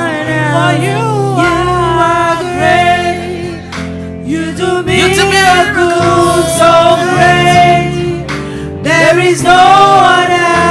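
Gospel worship song: men and women singing with instrumental accompaniment.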